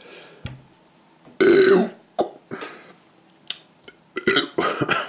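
A man burps loudly once, about a second and a half in, a short pitched belch that falls in pitch. Several shorter, quieter mouth sounds follow.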